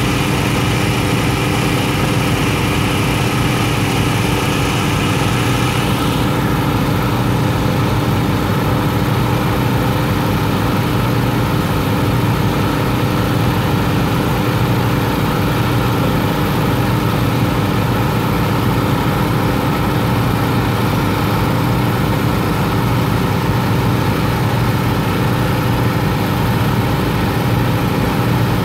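Small gasoline engine on a pontoon suction-dredge barge running steadily at a constant speed, powering the dredge pump as it sucks pond muck. A hiss in the upper range drops away about six seconds in.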